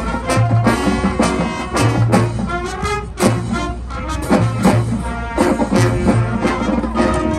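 Marching band playing: brass with drumline percussion, sharp drum strikes landing every fraction of a second over low, repeated bass hits.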